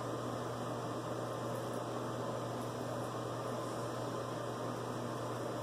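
Steady low hum with an even hiss, unchanging throughout; no distinct razor strokes stand out.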